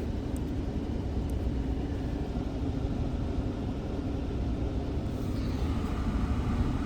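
2015 Ford Fusion's 1.5 EcoBoost four-cylinder engine idling rough and uneven, its number 3 injector cut out by a scan-tool power balance test while the number 2 injector is already failing. With two cylinders dead it runs badly, the P0302 cylinder 2 misfire made worse.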